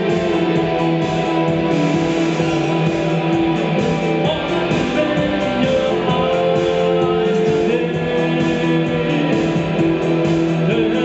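Rock music: an instrumental passage led by strummed guitars, with no singing.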